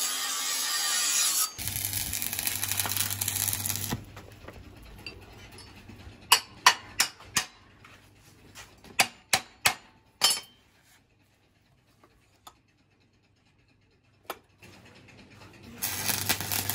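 An angle grinder cutting steel for the first second and a half, then a stick-welding arc crackling over a steady mains hum for about two and a half seconds. A string of sharp knocks follows, then a single knock after a quiet stretch, and the welding arc crackles again near the end.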